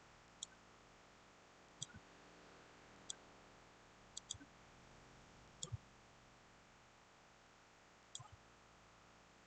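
Computer mouse buttons clicking over a faint steady background: about seven separate clicks at uneven intervals, with a quick double-click a little after the four-second mark.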